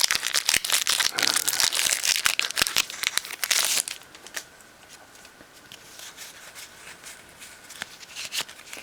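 Foil wrapper of a Pokémon booster pack crinkling and tearing as it is ripped open, loud for about four seconds. Then it drops to faint scattered ticks.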